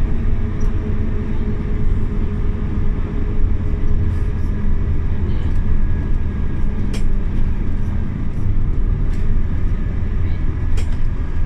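Interior of a Scania OmniLink CK270UB city bus under way: the steady low rumble of its nine-litre five-cylinder diesel engine mixed with road noise, with a few sharp interior rattles and clicks.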